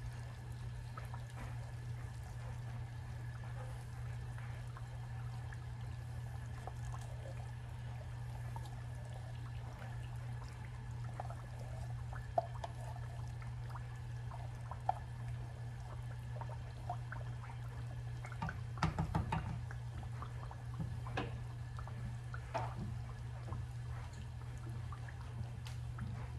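Thick sweetened condensed milk poured from a can into a cast-iron Dutch oven of pork cooking in lard, with soft dripping and trickling and light clinks of a wooden spoon working the milk into the pot, and a cluster of louder knocks about two-thirds of the way through. A steady low hum runs underneath.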